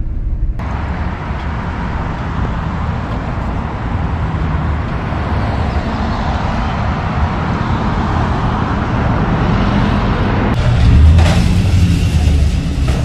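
Steady motor-vehicle rumble with road noise, swelling louder about eleven seconds in.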